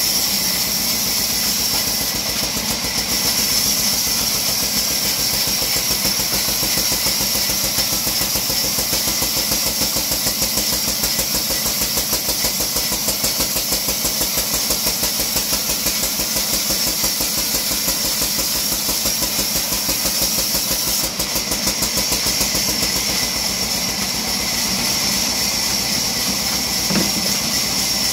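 A vertical bandsaw with 48-inch wheels running and sawing a log lengthwise into a plank. It makes a steady high-pitched whine over a fast, even low throb.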